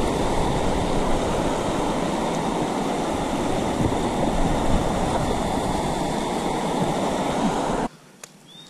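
Rushing white water of a shallow rocky cascade pouring over stones close by, loud and steady. It cuts off suddenly near the end.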